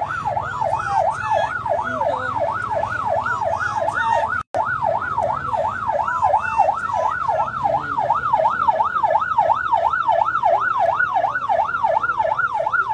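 Electronic vehicle siren in rapid yelp mode, its pitch sweeping up and down about three times a second without a break, apart from an instant's dropout about four and a half seconds in.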